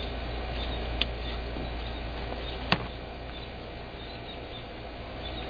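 Outdoor background with a steady low hum and faint scattered chirps, broken by two sharp clicks, one about a second in and a louder one just before the halfway point.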